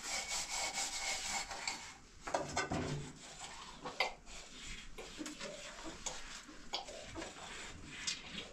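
Dishes being scrubbed in a metal basin: a scraping, rubbing sound with several clinks and knocks of metal dishes, the sharpest about four seconds in.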